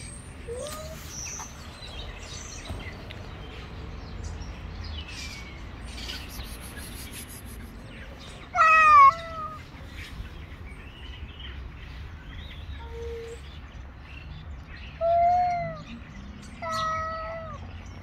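A cat meows three times: a loud call about nine seconds in, then two shorter calls near the end, about a second and a half apart.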